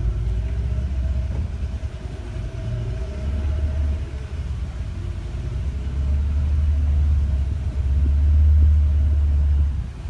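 Small boat's outboard motor running steadily under way, with a heavy low rumble that grows louder in the second half.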